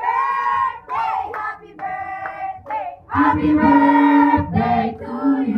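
A group of people singing together, several voices at once, getting louder with long held notes in the second half.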